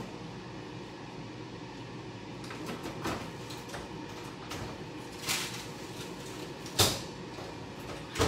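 Scattered kitchen knocks and clatter as a pan of cooked food is fetched: a few light knocks over steady room noise, with the loudest, sharpest knock about seven seconds in.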